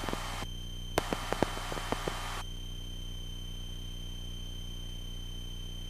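Light aircraft's engine drone in cruise, heard through the headset intercom with a steady high-pitched whine over it. For the first two and a half seconds, two bursts of radio hiss with sharp clicks cut in; after that only the steady drone is left.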